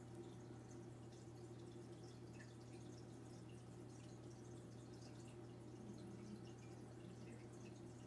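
Faint trickling and dripping of water from an aquarium filter: many small scattered drips over a steady low hum.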